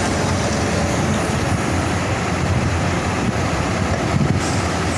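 Kobelco SK380XD LC crawler excavator's diesel engine running steadily, heard close up.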